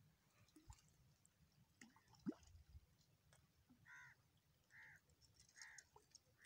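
Faint bird calls: a run of short calls a little under a second apart, starting about four seconds in. A single sharp tap comes about two seconds in.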